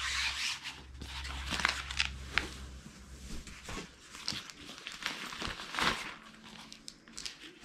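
Fabric blood-pressure cuff of an Omron upper-arm monitor being handled and folded: irregular rustling and crinkling with short crackles, busiest in the first few seconds and fainter afterwards.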